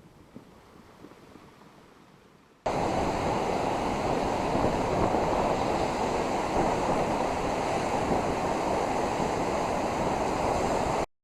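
Steady rush of ocean surf and wind noise on the microphone, starting abruptly about two and a half seconds in after a faint, quiet stretch with a few small ticks, and cutting off suddenly just before the end.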